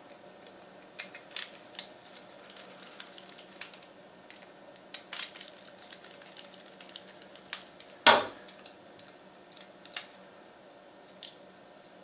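Small metallic clicks and scrapes of a screwdriver working the knob off a capillary thermostat switch, scattered and irregular, with one louder knock about eight seconds in.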